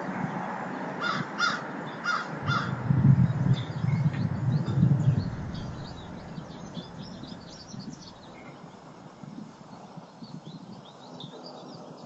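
A crow cawing four times in quick succession, followed by a loud low rumble for a couple of seconds. Small birds chirp faintly throughout.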